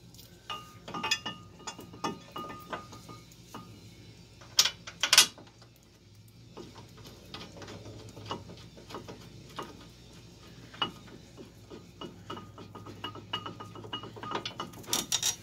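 Hand ratchet clicking in quick runs as the upper caliper bracket bolt is run in, with two sharp metal knocks about five seconds in.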